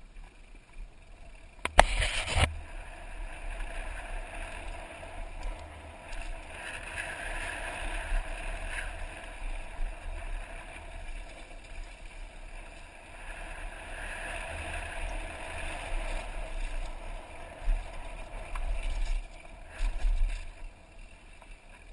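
A Giant downhill mountain bike ridden fast down a dirt and gravel trail, tyres rolling over loose ground with rushing wind noise on a helmet-mounted microphone. A sharp clatter of impact comes about two seconds in, with smaller knocks and rattles near the end.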